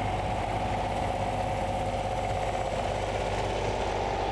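Modified pulling tractor's supercharged Brad Anderson engine idling steadily.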